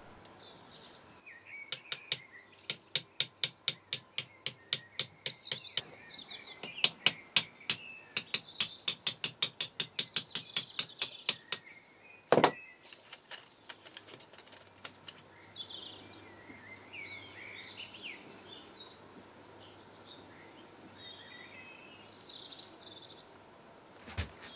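A run of sharp metallic clicks, about three to four a second, through the first half, ending with a single louder click. Birds chirp in the background through the second half.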